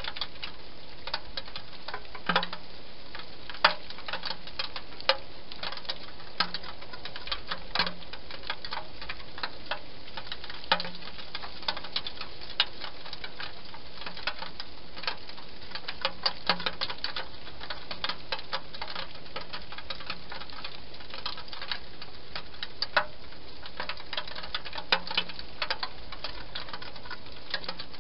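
A hedgehog eating from a bowl inside a clear plastic feeding box: irregular sharp chewing clicks, one or two a second, some with a dull knock, over a steady hiss.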